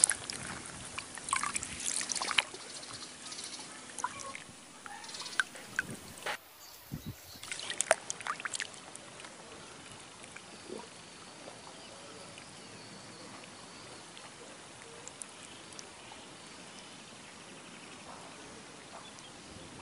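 Close water splashing and dripping around a wading angler's hands, sharp little splashes and plinks coming in clusters over the first eight seconds or so. After that there is only a faint steady outdoor hiss with an occasional small plink.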